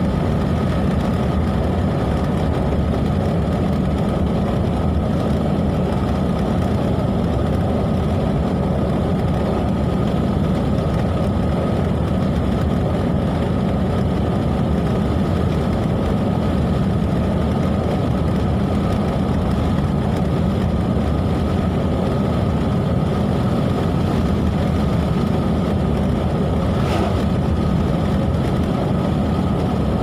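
Steady car-cabin noise from a car driving at road speed: a constant low engine and tyre rumble, with a thin steady whine above it. One faint tick near the end.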